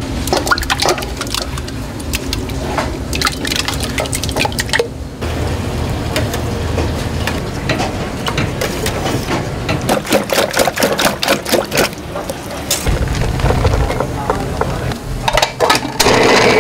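Raw eggs splashing into a large stainless-steel pot, then a wire whisk beating them, with rapid clicks and scrapes against the metal. Near the end a food processor's motor starts with a steady hum.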